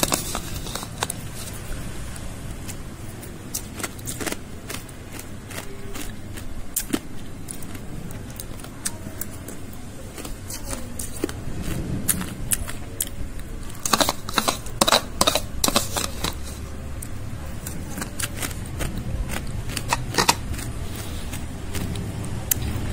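Ice crunching and cracking, with a metal spoon clinking and scraping on the ice in a cup: scattered sharp clicks that come in a dense run of crunches about two-thirds of the way through.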